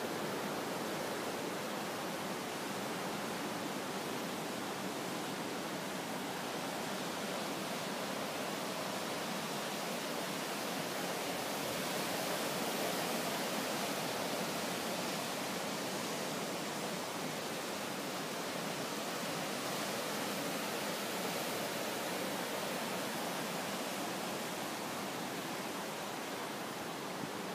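Surf breaking on a sandy beach, heard as a steady, even rush of noise that swells slightly about halfway through.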